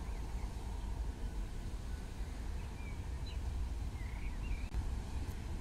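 Outdoor ambience: a steady low rumble with a few short, high bird chirps around the middle and again about four seconds in.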